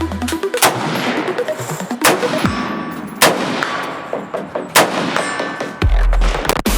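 Semi-automatic rifle shots fired one at a time, about five of them a second or so apart, some followed by a metallic ringing. Background music with a deep bass comes in near the end.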